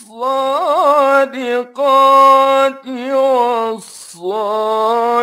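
A male Quran reciter chanting in the melodic mujawwad style, drawing out "wa-ṣ-ṣādiqīn wa-ṣ-ṣādiqāt" with long held notes and quick ornamented trills. There is a short pause about four seconds in before the next held phrase.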